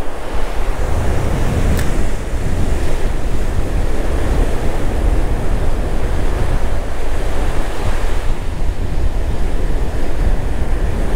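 Rough surf breaking and washing up the beach, with wind of about 20 mph buffeting the microphone in a steady, loud low rumble.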